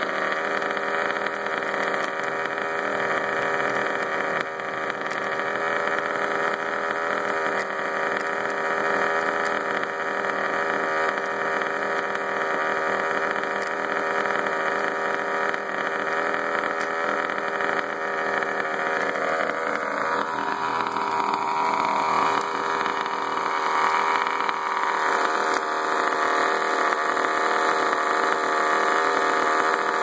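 HPI Baja 5T's small two-stroke gasoline engine idling steadily, with the rattle-like noise its owner calls strange and weird. It grows a little louder near the end.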